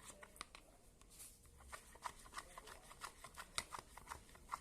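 Quiet, irregular small clicks and sticky squelches of glue-and-cornstarch slime being mixed and kneaded by hand.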